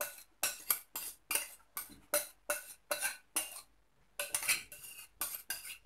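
A spoon scraping tomato sauce out of a bowl onto the vegetables in a tajine: short scrapes and clinks, about three a second, with a short pause about four seconds in.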